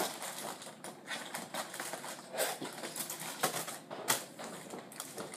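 Scattered light clicks and knocks, one or two a second, from someone moving about a kitchen and handling things at the counter while fetching a knife.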